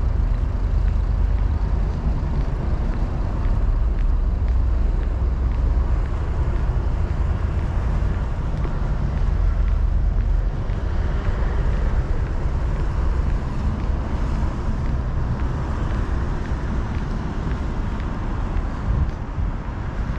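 Street traffic: a steady rumble of passing road vehicles.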